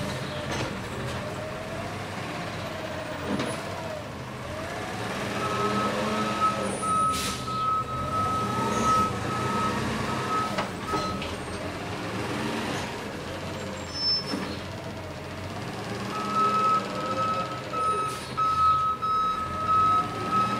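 Garbage truck's engine running and revving up and down repeatedly, with its reversing alarm beeping in two runs: the first starts about five seconds in, the second near the end. A few short sharp noises break in.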